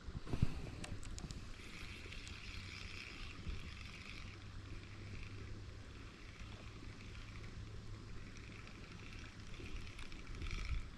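Fishing reel being cranked in short spells, a light whirring, over a steady low rumble, with a few clicks about a second in.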